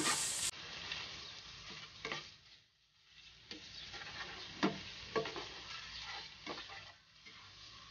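Bacon and ham pieces sizzling in oil in a nonstick frying pan as they brown, with a slotted spatula scraping and tapping the pan bottom now and then as they are stirred. The sizzle drops away briefly about two and a half seconds in.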